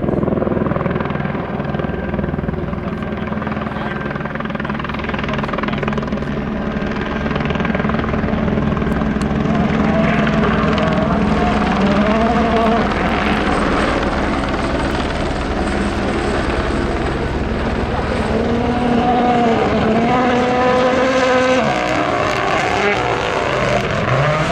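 Helicopter rotor beating steadily, with the sound of an engine wavering up and down in pitch underneath from about halfway through and climbing steeply near the end as the rally car approaches.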